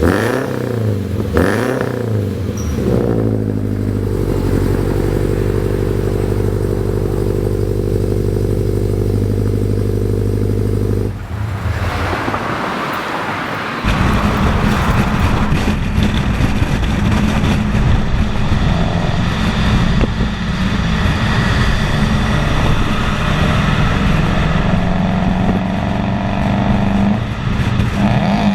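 Toyota GT86/Subaru BRZ/Scion FR-S 2.0-litre flat-four engine through a catless exhaust with an unequal-length header. It is blipped up and down at first, then held at a steady drone for several seconds. After a short drop about eleven seconds in, it runs louder and steadier, with rushing noise under it.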